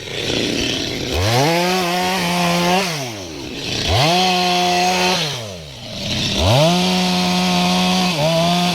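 Two-stroke chainsaw revved up and let back down to idle three times. Each time the pitch rises, holds steady for a second or two, then falls, with a short dip and pick-up near the end.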